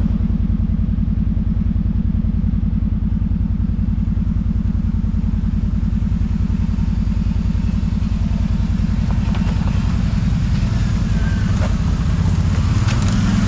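Kawasaki Brute Force 750 ATV's V-twin engine running steadily, a fast even pulsing at low revs.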